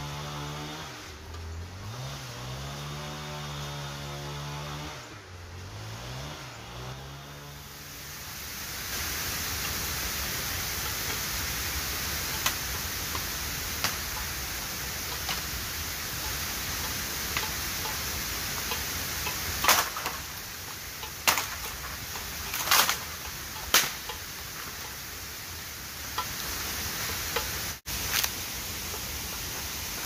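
A motor hum rising and falling in pitch for the first several seconds, then the steady rush of a waterfall. A few sharp knocks come about two-thirds of the way in.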